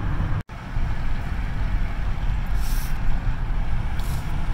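Steady road and tyre rumble inside a moving car at highway speed, cut by a brief dropout about half a second in.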